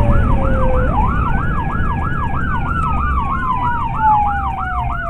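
Emergency vehicle sirens sounding together. One yelps fast, about three rises a second. The other wails, rising sharply about a second in and then falling slowly in pitch. Engine and road noise run underneath.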